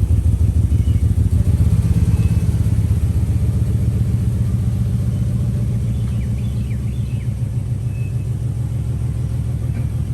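Vehicle engine idling with a deep, steadily pulsing rumble, loud and unrevved. Faint bird chirps sound about two-thirds of the way in.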